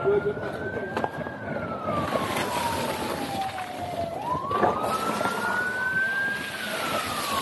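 Emergency vehicle siren in a slow wail: the tone climbs to its peak about a second in, falls slowly over about three seconds, climbs again about four seconds in, then starts to fall.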